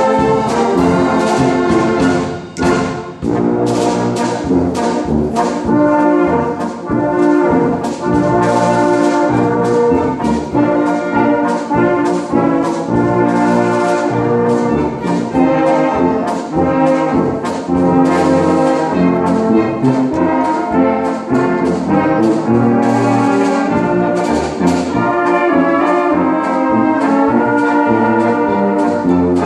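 Brass-heavy wind band playing a tune, with tubas and baritone horns carrying the bass under trumpets, over a steady drum beat.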